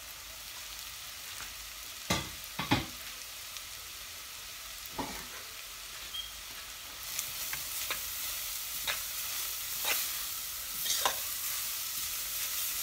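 Grated carrots sautéing in butter in a metal saucepan, sizzling steadily, the sizzle getting louder about halfway through as they are stirred. A spoon knocks sharply against the pan twice a couple of seconds in, then scrapes through the carrots about once a second.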